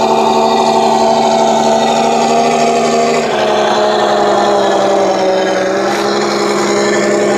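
Radio-controlled scale model GMC CCKW army truck running, a steady buzzing drone from its drive that shifts slightly in pitch about three seconds in.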